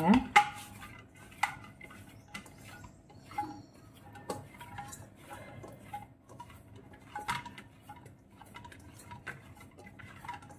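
Dough being kneaded by hand in a stainless steel bowl: irregular light knocks and clinks of the metal bowl as it is pushed and turned, with a faint ring after them, a few knocks louder than the rest.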